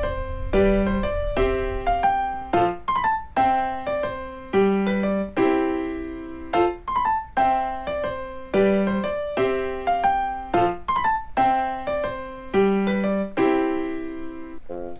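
Background music: a light piano melody of plucky struck notes in a repeating phrase.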